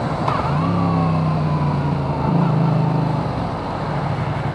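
Yamaha MT-07 motorcycle engine under engine braking during downshifts, with a slowly falling whine and a change in the engine note about two seconds in, picked up by a microphone inside a full-face helmet along with wind noise. The rider drops too many gears, enough to make the bike squirm.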